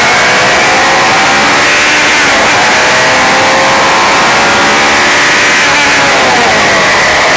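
Single-seater racing car's engine under hard acceleration, its pitch climbing with a shift about two seconds in, then falling from about six seconds in as the car slows for a corner. A steady rush of wind noise runs underneath.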